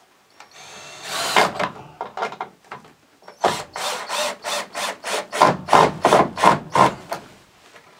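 Power drill driving screws into the boards of a wooden pallet. There is a short whining run about a second in, then about a dozen quick pulses, roughly three a second, as the screw is driven home.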